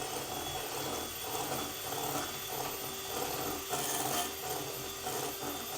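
Electric kitchen mixer running steadily as it beats cake batter in a bowl, with a rhythmic scraping of the beaters against the bowl.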